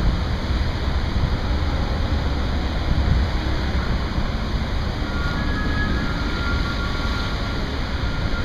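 Steady rushing spray of a large fountain's water jets, mixed with road traffic passing close by.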